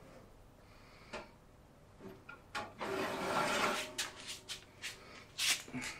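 A single light knock, then about a second and a half of rubbing or scraping, followed by several short knocks and clicks: objects being handled and rubbed.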